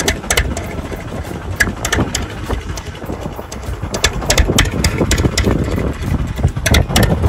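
Small fishing boat's engine running under way, with frequent sharp knocks and slaps over the low engine rumble as the boat rides the waves.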